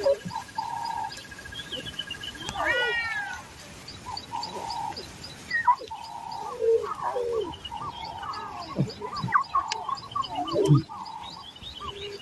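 A busy mix of animal calls: many short, repeated chirping calls, with one longer falling call about three seconds in.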